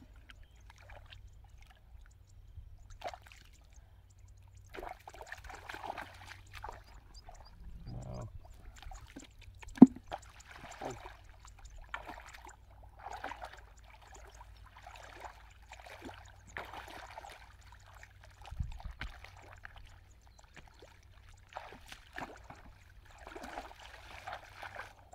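Bare feet wading through shallow muddy water, with irregular splashes and sloshes about once a second, and one sharp knock about ten seconds in.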